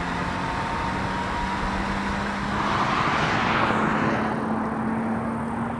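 A sports car driving past with its engine note held steady and edging up in pitch, while a rush of tyre and wind noise swells to a peak around the middle and fades.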